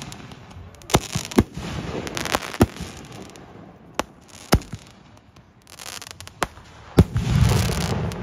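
Aerial firework shells bursting overhead: a string of sharp bangs at irregular intervals over a crackling hiss, with a longer low rumbling burst about seven seconds in.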